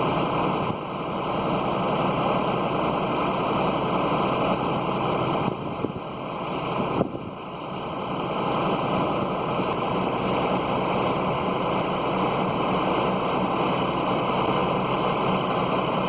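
Magnet excavator's engine running steadily, with two brief knocks about six and seven seconds in.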